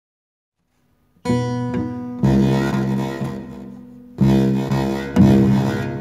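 Badly out-of-tune, distorted guitar: after about a second of silence, four low chords are struck, each ringing out and fading before the next.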